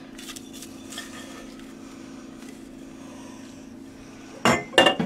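Spatula scraping thick cake batter out of a glass mixing bowl into a metal baking pan: soft scrapes and squishes over a steady low hum, then a couple of loud knocks and clatters of utensil and bowl against the pan near the end.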